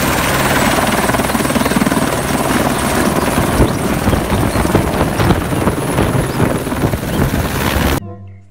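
Light turbine helicopter running on the ground with its main rotor turning: a steady high turbine whine over the rhythmic chop of the rotor blades and dense rushing noise. It cuts off abruptly near the end.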